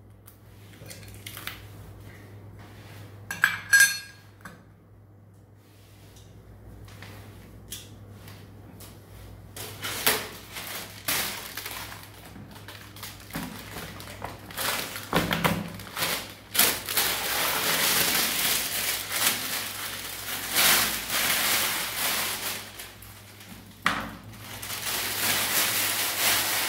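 Metal toilet-seat hinge fittings clinking against a ceramic toilet, with a couple of sharp ringing clinks a few seconds in. From about ten seconds on comes steady rustling and rubbing as a plastic-wrapped toilet seat is handled and fitted onto the hinges, with scattered knocks.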